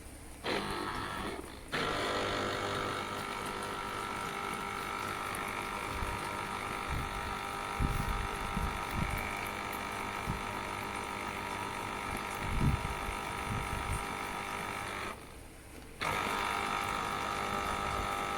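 Electric citrus juicer's motor running with a steady whine while fruit is pressed. It stops briefly about two seconds in and again for about a second near the end. A few low thumps come in the middle.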